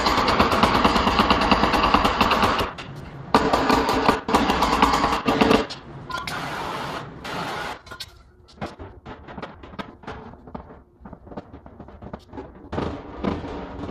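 Fast-forwarded work sounds from paintless dent repair: a dense, rapid clatter of clicks and taps, loud for the first five or so seconds, then a quieter, sparser patter of clicks.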